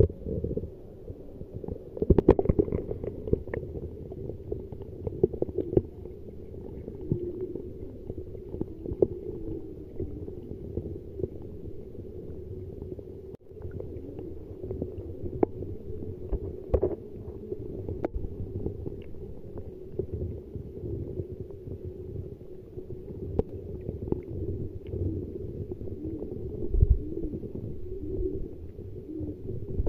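Muffled underwater noise picked up by a phone's microphone submerged in a pond: a dull steady rumble with scattered clicks and knocks, likely from water movement and handling of the phone.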